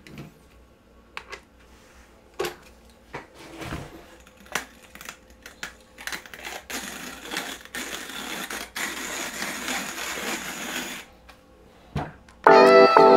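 POTU hand coffee grinder: scattered clicks and knocks as it is handled, then about four seconds of dense crunching rattle as beans are ground in its burrs, and a single knock near the end as it is set down.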